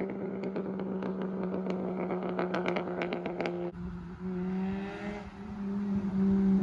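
Straight-piped VW Jetta 2.5's inline-five exhaust popping and crackling, a quick run of sharp cracks over a steady engine drone, which cuts off about three and a half seconds in. The engine note then grows louder again near the end.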